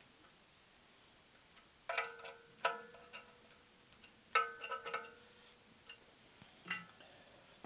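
Metal clinking as a 3/8-inch ratchet is handled and fitted into the welding table's angle lock: half a dozen sharp clinks spread over several seconds, each ringing briefly with a metallic tone.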